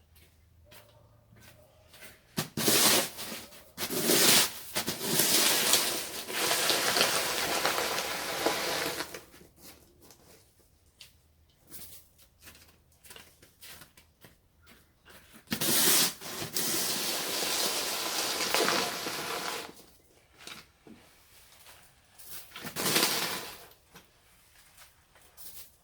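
Snow shovel blade scraping icy, slushy snow along a paved driveway: a few sharp knocks of the blade, then long scraping pushes of several seconds each, with pauses between.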